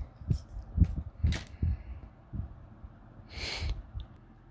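Handling noise from a plastic two-pole voltage tester being moved and laid down on a cloth: a few dull knocks and clicks in the first two seconds. About three and a half seconds in comes a short breathy exhale.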